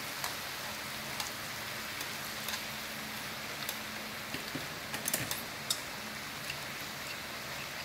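Beef and vegetables sizzling on a hot grill pan as a steady hiss, with light clicks of chopsticks turning the meat, several of them about five seconds in.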